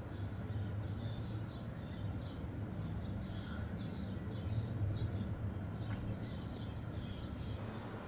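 Sparrows chirping, many short high chirps repeated all through, over a steady low hum.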